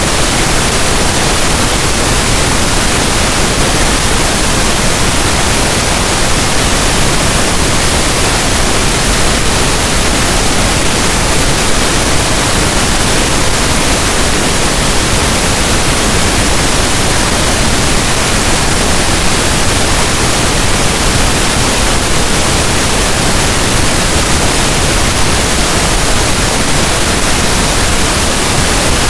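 Synthetic pink noise: a loud, steady hiss spread evenly across the whole range, unchanging throughout.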